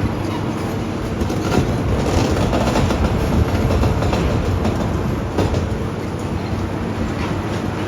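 Heavy demolition machinery running steadily, its engine drone mixed with irregular clanks and crunches of breaking debris.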